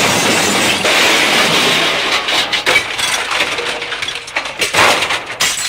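Crash sound effect: a loud, continuous rush of cracking, snapping and breaking, with many sharp knocks throughout, standing for the truck wrecking on the bridge.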